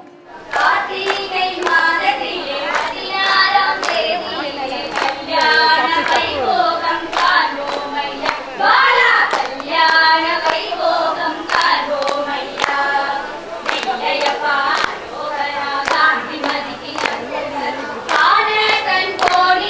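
A group of women singing a Tamil wedding song together, with sharp, regular clicks keeping the beat.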